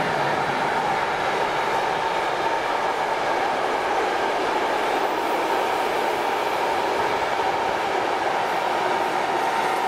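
A container freight train behind a Siemens Eurosprinter ES 64 F4 electric locomotive rolls past close by. Its loaded container flat wagons make a steady, even rolling noise of wheels on rails, with no distinct knocks.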